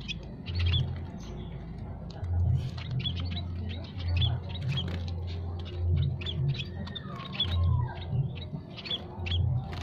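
Small munias (emprit), scaly-breasted and Javan munias, giving short high chirps over and over, several a second, with one lower call sliding down in pitch about seven and a half seconds in. A low rumble comes and goes underneath.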